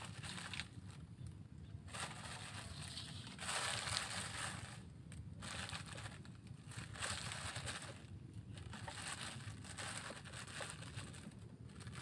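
Thin plastic bag crinkling and rustling in irregular bursts as a hand rummages in it, loudest about four seconds in, over a faint low steady hum.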